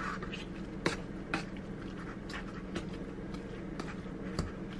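A metal fork clicking and scraping against a tin can while shredding canned chicken: about six sharp, irregular clinks, loudest about a second in and near the end, over a steady low hum.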